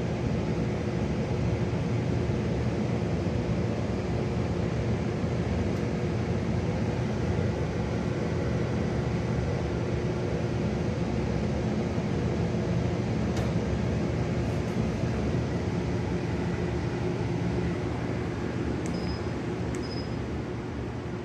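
Pet drying box blower running: steady fan noise with a low hum, unchanging throughout, with a few faint ticks in the second half.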